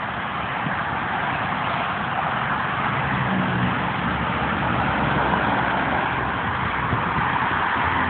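Interstate highway traffic passing at speed: a steady rush of tyre and engine noise from cars and a semi truck going by close at hand.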